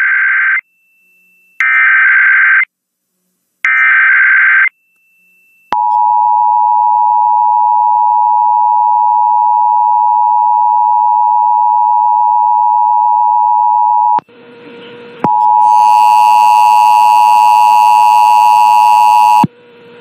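Radio broadcast of an Emergency Alert System test. Three roughly one-second screeching bursts of SAME digital header data come first, then the EAS two-tone attention signal (853 and 960 Hz), held steady for about eight seconds. After a short break, a louder, harsher tone with many overtones sounds for about four seconds near the end.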